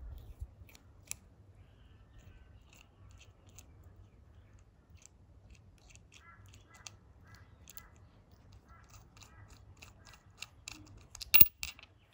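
Steel eyebolt being unscrewed by hand from the threaded centre of a neodymium fishing magnet: a run of small metallic clicks and ticks from the threads and the ring, with one loud metal clink near the end.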